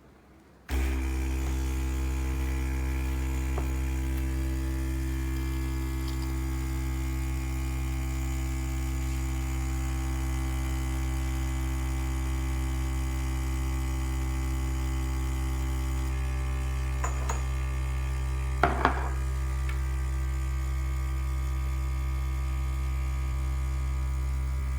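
De'Longhi EC155M espresso machine's vibratory pump running steadily while brewing a shot, a loud hum that starts about a second in and cuts off abruptly at the end. A few light clinks come about two-thirds of the way through.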